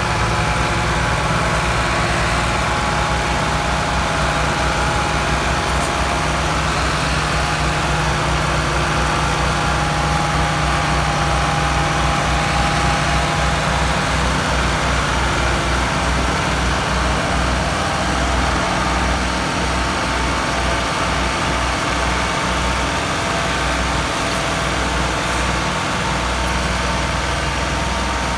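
Two Ford three-cylinder diesel tractor engines running steadily under heavy load, one tractor pulling the other, which is bogged down and hitched with a loaded trolley, by a chain; a deep low throb throughout.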